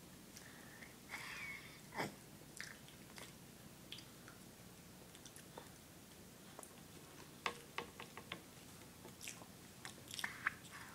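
A toddler eating soft cream cake from a spoon: faint chewing and mouth smacks, with scattered small clicks.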